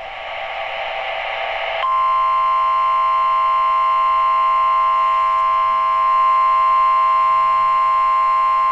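Weather radio alert sequence: about two seconds of static hiss, then a steady electronic tone that comes on abruptly and holds unchanged. It is the NOAA Weather Radio warning alarm tone of an Emergency Alert System required weekly test.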